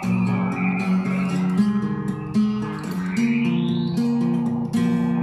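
Steel-string acoustic guitar played with the fingers, a melody of single plucked notes changing every half second or so. A fainter high tone glides upward in pitch about three seconds in.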